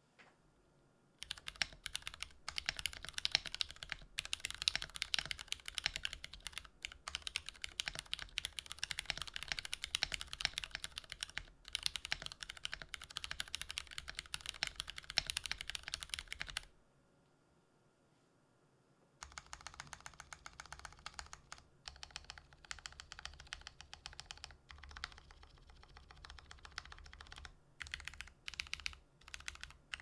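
Fast typing on a YC66 mechanical keyboard fitted with stock Cotton Candy light tactile switches and Artifact Noir keycaps: a rapid run of key clacks, a pause of about two seconds past the middle, then typing again that thins out into separate key presses near the end.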